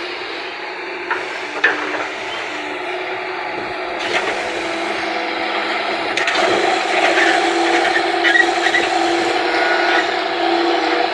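Diesel earthmoving machinery running steadily at work digging and loading mud, with a few sharp knocks early on and growing louder past the middle.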